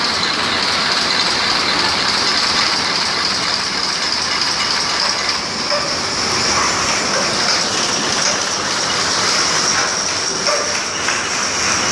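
Brush tufting machine running, a fast, steady mechanical clatter of rapid strokes over a steady high whine.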